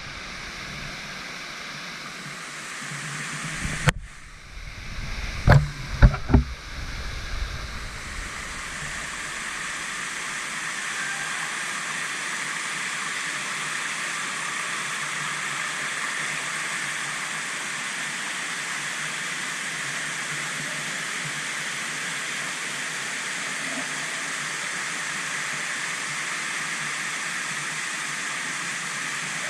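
Waterfall pouring into a rock pool, a steady rush of falling water. About four seconds in the sound briefly drops out, then a few loud low thumps follow before the steady rush resumes.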